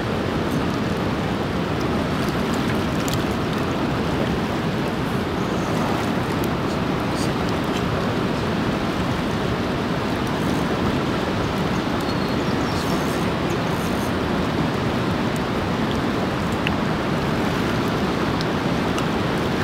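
Steady rushing of river water, an even roar with no let-up in level.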